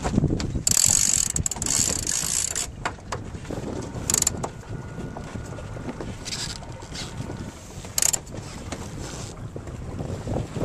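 Sailboat deck hardware being worked as the jib is trimmed: the sheet winch and rope running through the blocks give several short bursts of ratcheting and rope hiss, the longest about a second in. Under it is a steady rumble of wind on the microphone and water along the hull.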